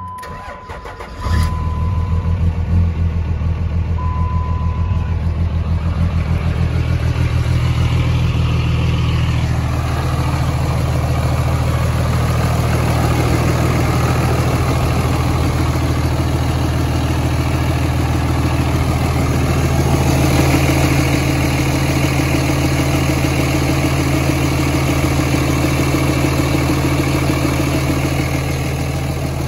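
A third-generation Dodge Ram's turbo-diesel engine starts: a short crank, then it catches about a second in and settles into a steady idle. This is its first start on a newly fitted serpentine belt. A dash chime beeps over the start and once more a few seconds later.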